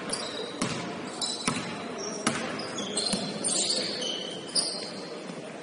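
Basketball game play: a ball bouncing on a hardwood court with a few sharp, irregular thuds, and many short high sneaker squeaks, over voices in the gym.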